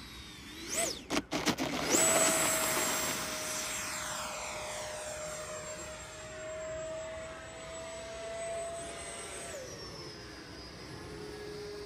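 Electric ducted fan of an 80mm FMS Rafale RC jet whining. About two seconds in the pitch jumps up as the fan is throttled up, holds high and steady, and drops to a lower pitch near the end as the throttle comes back. There are a few short knocks about a second in.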